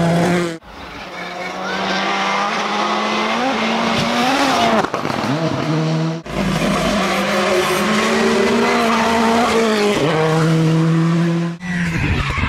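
Rally car engines at full throttle, revving hard and changing gear, with tyre skidding, in several clips that cut abruptly from one to the next.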